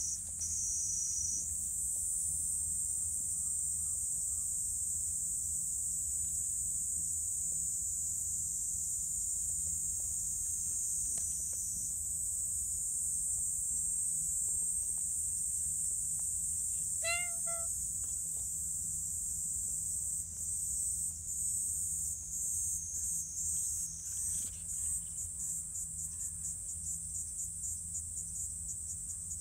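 A high insect chorus drones steadily, then breaks into rapid pulsing about two-thirds of the way through. About halfway, the calico cat gives one short meow.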